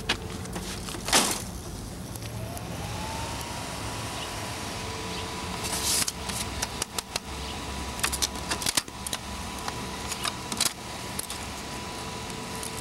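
Canon photocopier being handled, with plastic parts clicking and knocking and one loud knock about a second in. A motor whine rises over a second or so, then holds steady under the clicks.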